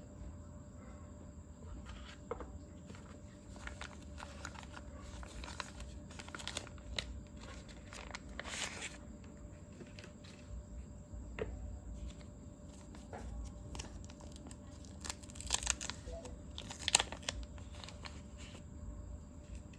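Packaging being handled and torn open: irregular paper and plastic rustling and crinkling with scattered sharp clicks and taps, the loudest of them a little after the middle and toward the end.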